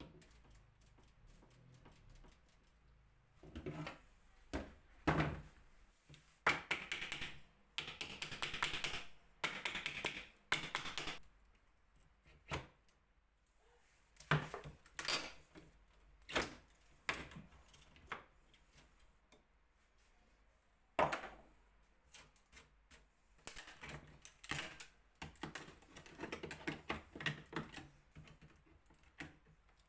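Hand work on a wooden cabinet: irregular sharp clicks, taps and knocks, with two stretches of rapid clicking.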